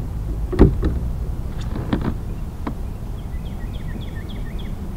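A few knocks and taps on the kayak, the loudest about half a second in, then two more around two seconds in, over a steady low wind rumble on the microphone. Near the end there is a short run of four quick high chirps.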